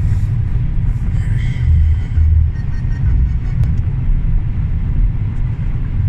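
Steady low rumble of road and engine noise inside a car's cabin while it drives at motorway speed.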